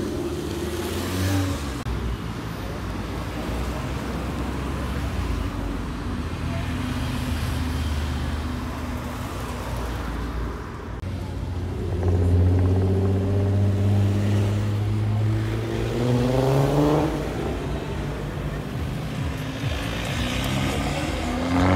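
Tuned Volkswagen and Audi hatchbacks' engines running and accelerating along the road one after another. The engine note climbs as the revs rise about halfway through and again near the end.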